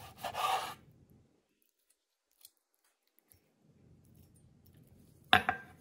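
A knife slicing through a seared steak on a wooden cutting board, a short scraping cut in the first second. Then a near-silent stretch, and near the end a sharp clack of cutlery against the board.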